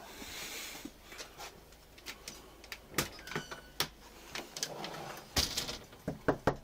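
Clicks and rattles of a storm door being unlatched and pulled open. Near the end come sharp, quick knocks on the front door behind it.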